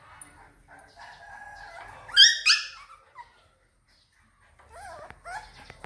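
Puppies play-fighting: a thin whine just after the first second leads into two loud, high-pitched yelps about two seconds in. After a brief silence come a few short, wavering whimpers and yips near the end.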